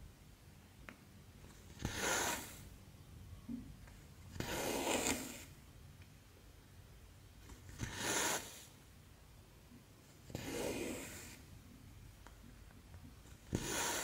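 Cotton embroidery thread being drawn through the cross-stitch fabric of a stamped kit, five rasping pulls about three seconds apart. Short, higher pulls alternate with longer, lower ones, and some start with a small click of the needle.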